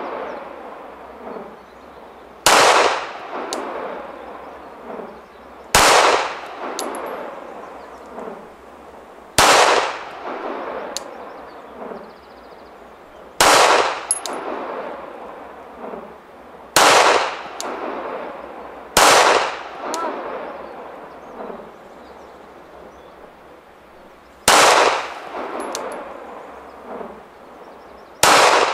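Glock 34 9mm pistol fired about eight times, single shots a few seconds apart, each followed by a long fading echo.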